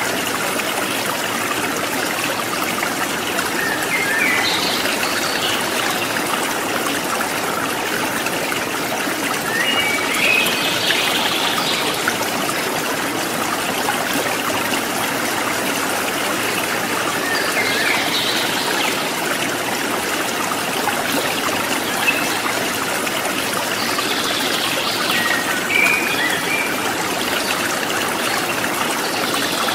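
Steady running, trickling water, like a stream, with a few short high chirps every several seconds.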